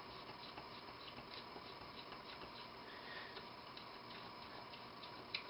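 Faint light ticks and clicks, a few a second and unevenly spaced, over quiet room tone.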